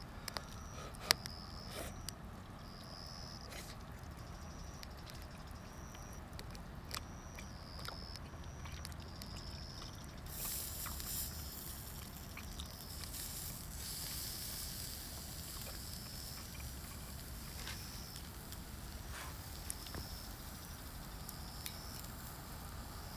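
An insect chirping in short, high pulses about once a second, over scattered crackles from the wood fire. A stretch of hiss comes in about ten seconds in and fades a few seconds later.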